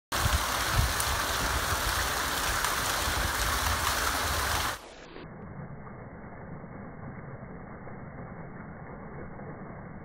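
A stream of water falling onto a concrete floor and splashing, a steady rushing hiss. Nearly five seconds in it drops suddenly to a quieter, muffled, low rumble: the splashing slowed down with the slow-motion footage.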